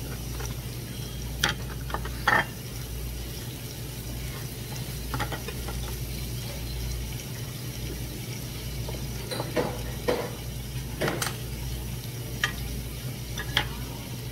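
Squid, octopus and thin-sliced pork belly sizzling on a hot tabletop griddle plate, with a steady low hum underneath. Utensils click sharply against the plate about seven times as the food is turned.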